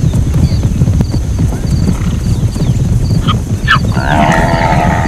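Zebra calling: two short sharp yelps a little past three seconds in, then a longer, rapidly pulsing call from about four seconds. A steady low rumble runs underneath.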